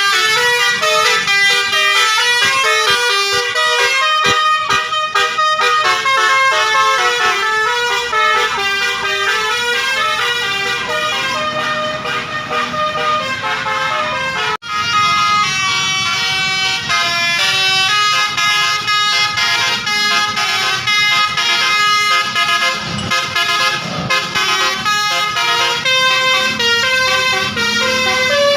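Basuri multi-tone bus air horn (telolet horn) playing a fast tune of quickly changing notes. About halfway through it cuts out for an instant and another tune starts.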